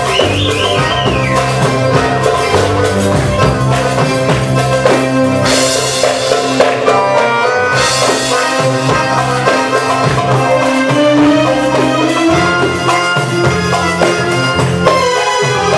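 Arabic dance music played live on electronic keyboards: a melody in synthesized brass-like tones over a steady drum rhythm.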